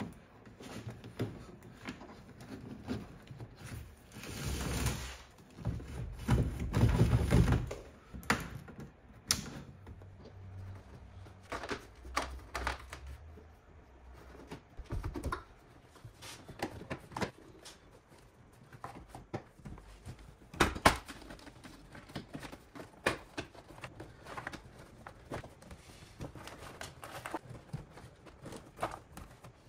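Hands working a wire through a rubber grommet and plastic trim panels: a rubbing, rustling stretch about four to eight seconds in, then scattered light clicks and knocks.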